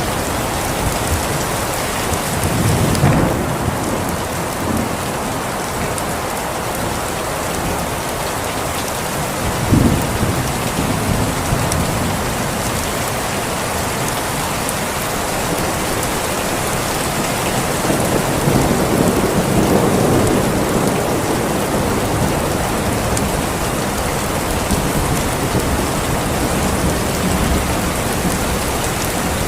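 Steady heavy rain falling, with low rolls of thunder about three seconds in, a sharper one about ten seconds in, and a longer rumble about eighteen to twenty-one seconds in.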